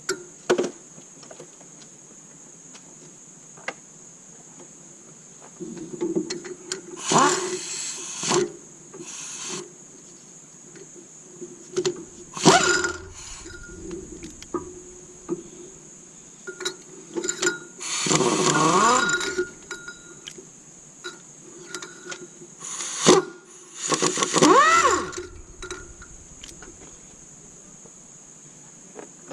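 Metal tools and engine parts being handled during an engine teardown: scattered clinks and knocks, with several short noisy bursts lasting a second or two, some sliding up or down in pitch.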